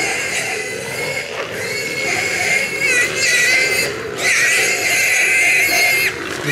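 Feral pig squealing as hunting dogs catch it: long, high-pitched, wavering squeals, broken by short pauses about four and six seconds in.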